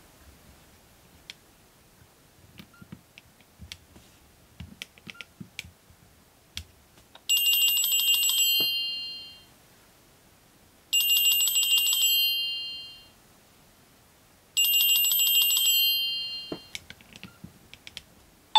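Nokia N70 ringtone played through the phone's loudspeaker: a short, high-pitched ringing phrase sounded three times, about three and a half seconds apart, each fading out. Before the first ring there are only a few faint clicks.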